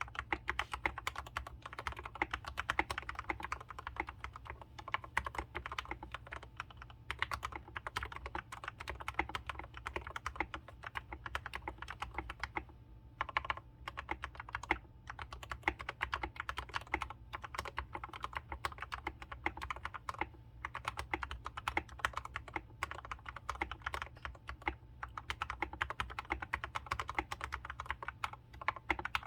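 Continuous typing on a TM680 mechanical keyboard with linear Gateron Red switches, tape-modded with three layers of masking tape: a rapid, even clatter of keystrokes with a couple of brief pauses. A steady low hum runs underneath.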